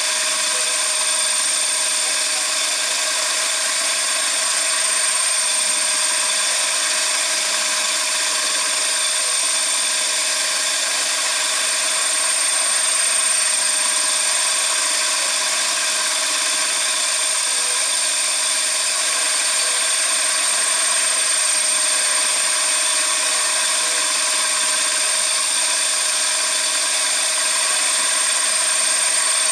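CNC machine running steadily, with a constant high-pitched whine over a busy mechanical hiss that does not let up.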